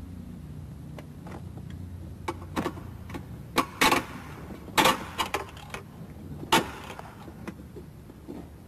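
Socket wrench tightening engine mount bolts: a run of sharp metallic clicks and clanks, some in quick clusters, loudest in the middle, over a low steady hum.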